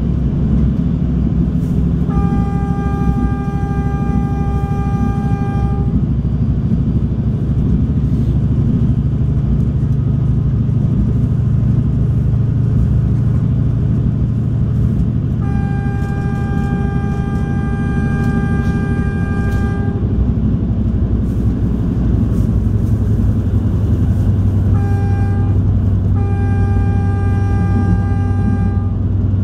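NJ Transit River Line diesel light rail car running with a steady engine drone that drops in pitch about two-thirds of the way through, while the train's horn sounds four times: a long blast, another long blast about ten seconds later, then a short one and a long one close together near the end. The sequence matches the long-long-short-long signal sounded when approaching a grade crossing.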